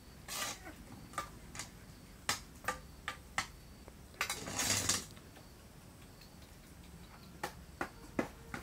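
A towel rubbing a wet puppy dry: cloth rustling, loudest in a burst about four seconds in, among scattered small clicks and taps.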